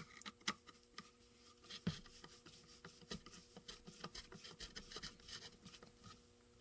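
Faint small clicks and scrapes of a Chicago screw and nut being fitted through a kydex holster and screwed together by hand.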